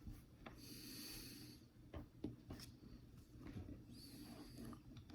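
Near silence, with faint breaths at the microphone about half a second in and again about four seconds in, and a few small mouth clicks in between.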